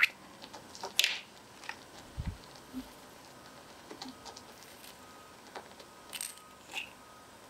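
Light clinks and taps of a tiny spoon against a small ceramic sugar jar as it is opened and sugar is scooped, about seven short sharp clicks with the loudest about a second in. A soft low thud comes about two seconds in.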